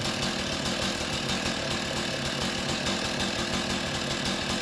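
Chainsaw on a chainsaw mill running steadily, its engine held at an even speed throughout.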